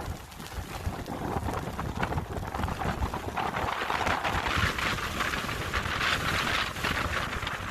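Hurricane wind and rain, with gusts buffeting the microphone in a low rumble; a hissing rush of wind-driven rain grows louder about three seconds in.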